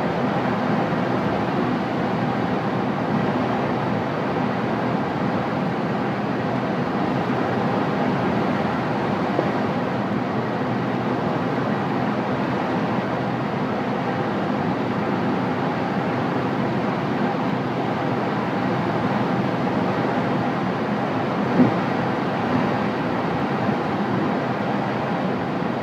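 Steady rush of air around the canopy of a glider in flight, even and unbroken.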